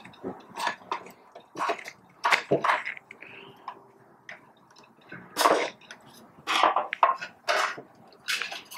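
Flathead screwdriver prying a timer switch out of a plastic grinder chassis: a series of irregular clicks and knocks of metal and plastic, with a quieter stretch in the middle.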